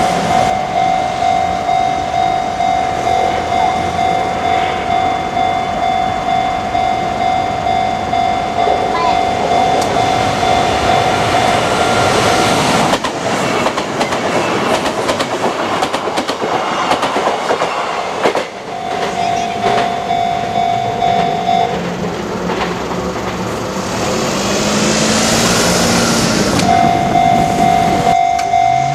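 Japanese level-crossing alarm ringing its repeating electronic bell while a Kintetsu electric train passes, wheels clattering over the rail joints. The bell drops out for a few seconds midway and rings again twice.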